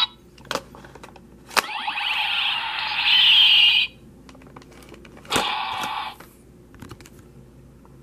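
DX Dark Visor Zwei toy buckle: plastic clicks of its visor mechanism, two of them each setting off an electronic sound effect from the toy's built-in speaker, a longer one of about two seconds and then a short one. A few small clicks follow as the toy is handled.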